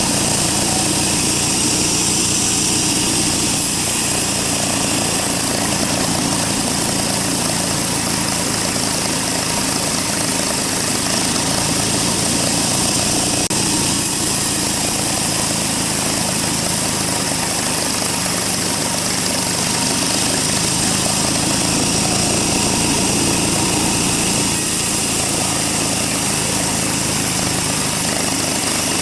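Large sawmill bandsaw running, a loud, steady machine noise that continues without a break.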